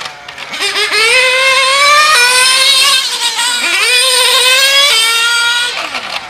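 Kyosho Inferno GT3 RC car's nitro engine running hard as it laps: a high, buzzing note that climbs in pitch under throttle, drops sharply just after three seconds in as it lets off, then climbs again.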